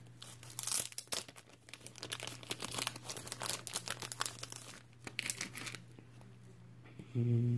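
Crinkling and rustling of plastic as a trading card in its sleeve or holder is handled, a dense crackle for about five seconds that then dies down, over a steady low electrical hum.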